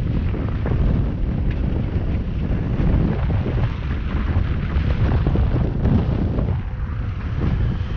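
Strong wind buffeting the microphone: a loud, uneven low rumble that surges and eases.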